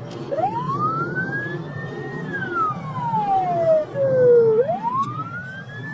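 Police car siren wailing. The pitch climbs for about a second, holds high, falls slowly over about two seconds, then climbs again near the end, over a steady road rumble.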